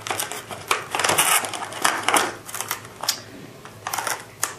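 Stiff clear plastic blister packaging crackling and clicking as a flashlight is pulled out of it by hand.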